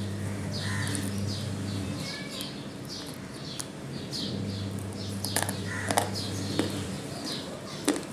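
Dry multani mitti (Fuller's earth clay) crunched between the teeth, with a few sharp cracks about halfway through and near the end. Birds chirp over and over, and a low hum comes and goes.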